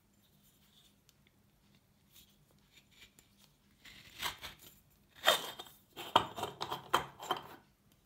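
Aluminium parts of an old stovetop moka pot scraping and clinking against each other as the pot is handled and its funnel filter basket is worked out of the boiler. The sound comes in short bursts of clicks and scrapes during the second half.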